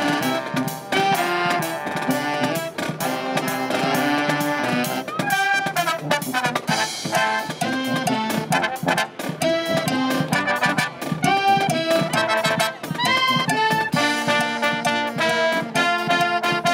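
Marching band of clarinets, saxophones, sousaphone, trumpets and snare and bass drums with cymbal playing a lively tune, with steady drum strikes under the horns.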